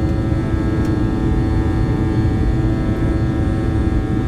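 Steady cockpit drone of an Avro RJ100 in the climb: the low rumble of airflow and its four turbofan engines, with several steady hum tones over it.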